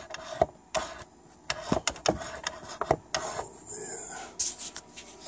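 Irregular clicks and knocks from a Husqvarna Viking 6690 sewing machine being tried with its foot pedal, with a short whir about three seconds in. The pedal control is not working.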